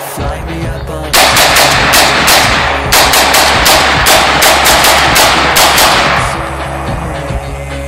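Bushmaster AR-15 rifle firing strings of shots in quick succession, several a second, starting about a second in and stopping about six seconds in.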